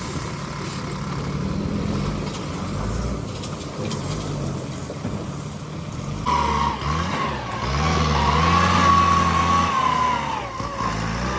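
Bulldozer's diesel engine running under load. About six seconds in it gets louder and a wavering high whine joins it, lasting until near the end.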